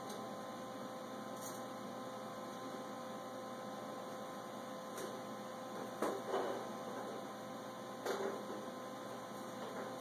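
A steady electrical hum, with short clatters about six and eight seconds in as spring clamps and a metal backing plate are shifted on a 1961 VW Beetle's steel deck lid.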